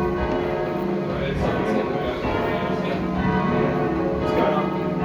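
Change ringing on a ring of twelve church bells with a 28-2-16 cwt tenor in C#: the bells strike one after another in a continuous, even succession, their ringing tones overlapping.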